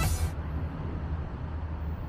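Electronic background music cuts off in the first moments, leaving a steady low rumble of city street traffic.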